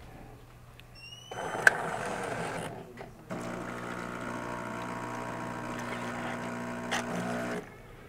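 Jura Z8 super-automatic espresso machine running its latte cycle: a short whir a little over a second in, then after a brief pause a steady mechanical pump hum for about four seconds as it dispenses coffee and milk, cutting off suddenly near the end.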